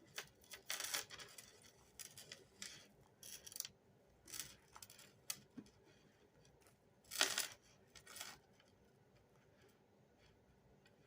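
Beaded necklaces being handled and pulled apart by hand: faint, scattered small clicks, clinks and rustles, the loudest a short burst about seven seconds in.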